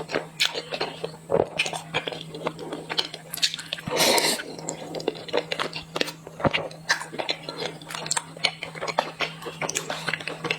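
Close-miked mouth sounds of a person chewing and biting purple rice bread dipped in sesame paste: many small wet clicks and smacks, with one longer, louder bite sound about four seconds in.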